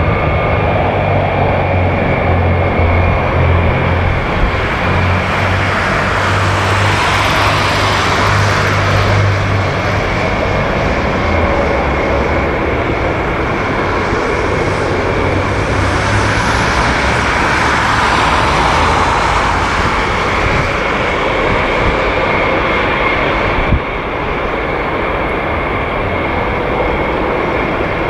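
Boeing E-8C's four TF33 turbofan engines running as the jet taxis: a steady, loud jet noise with a high whine over a low rumble.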